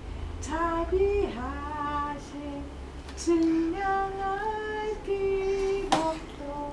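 Singing: a simple tune of held notes that step up and down, with a sharp click about six seconds in.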